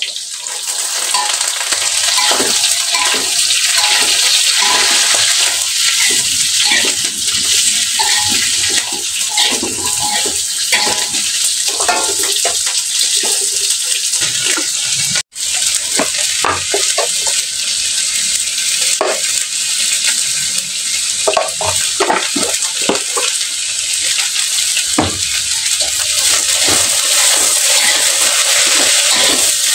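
Food sizzling in a frying pan, a steady loud hiss, with repeated clicks and scrapes of a utensil stirring it. The sound cuts out for an instant about halfway through, then resumes.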